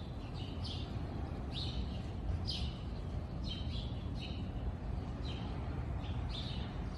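A songbird chirping: short, sharp downward-sweeping chirps repeated about once a second, some in quick pairs, over a steady low rumble.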